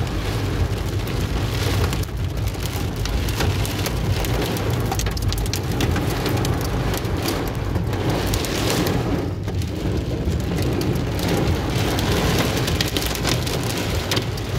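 Torrential rain mixed with hail pelting the car's roof and windshield, a dense, continuous patter of hits heard from inside the cabin, over a steady low rumble of the car on the road.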